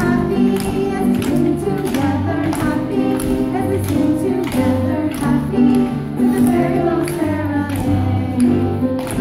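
A group of women singing together over upbeat accompaniment music with a steady beat.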